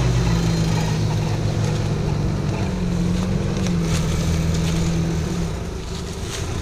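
UAZ-469 soft-top off-roader's engine running steadily at low revs as the vehicle creeps over the forest floor, its pitch dipping slightly about halfway through and the sound easing off near the end.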